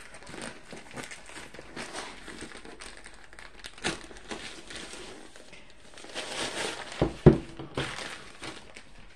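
Thin clear plastic packaging bag crinkling and rustling as a hard-shell drill storage case is worked out of it, with a sharp knock about seven seconds in.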